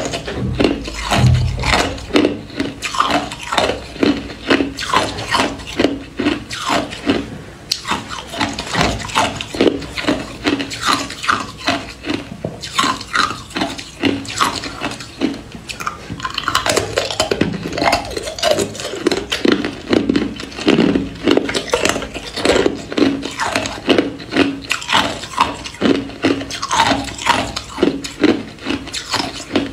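Hard ice cubes being bitten and chewed close to the microphone: a steady run of sharp crunches, about three a second.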